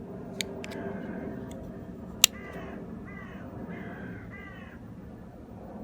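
A bird, likely a crow, cawing: about four calls in a row. A few sharp clicks are heard earlier, one of them loud about two seconds in.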